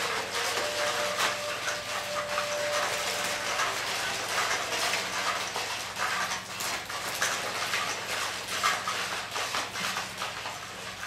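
Joint servo motors of several Nao humanoid robots whirring and clicking as they dance, a dense, irregular mechanical clatter of small gear and motor noises.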